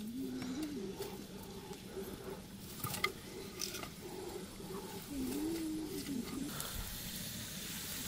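Sticks and kindling being handled and laid into an open wood fire, with a few sharp snaps about three seconds in. Two low, wavering calls from an animal or bird sound behind it, one at the start and a longer one past the middle.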